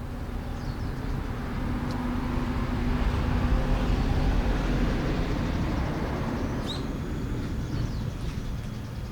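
A road vehicle passing: a low engine-and-tyre rumble that swells to its loudest about four seconds in, then slowly fades.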